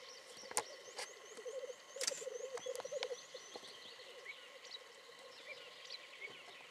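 Male black grouse bubbling at the lek, a rolling, pulsing coo that is loudest from about one to three seconds in, then fainter. Other birds chirp higher up, and a sharp click comes about half a second in, with a few fainter ones after.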